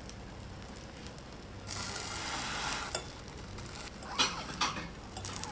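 Pancake batter sizzling in hot oil in a stainless steel frying pan while a metal spatula presses and scrapes it against the pan, with louder stretches about two seconds in and again around four seconds in. The frying sound is still going, which the cook takes as the sign that the pancake is not yet done.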